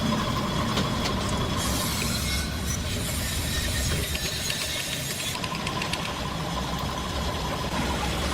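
Steady workshop machinery noise: a continuous low hum with a faint steady whine and scattered clicks and knocks.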